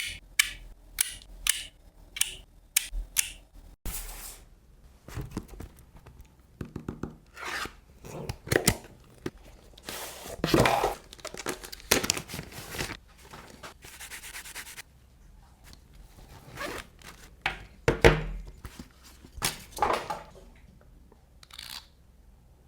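Packaging being handled and opened by hand: a quick run of sharp clicks at the start, then rubbing, rustling and tearing noises with a few knocks as pieces are pulled out and set down.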